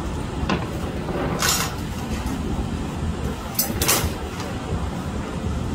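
Metal glassblowing hand tools clinking as they are picked up and set down on a steel workbench: a few short sharp clinks, two close together near the four-second mark, over a steady low rumble.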